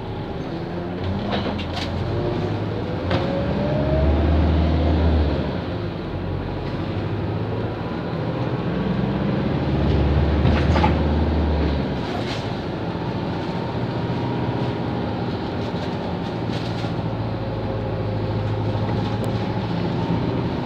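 Engine and road noise heard from inside a moving bus. The low engine rumble swells twice, about four seconds in and again around ten to twelve seconds in, and a whine rises in pitch about two to four seconds in. A few sharp rattles or clicks come through.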